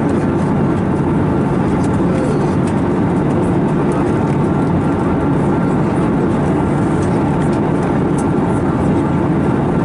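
Steady cabin noise aboard an Airbus A321neo in flight: an even, unchanging roar of airflow and its CFM LEAP-1A engines.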